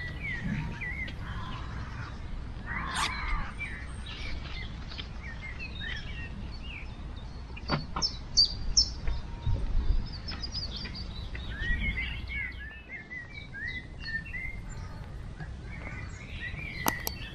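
Several songbirds chirping and singing over a steady low rumble, with a couple of sharp clicks.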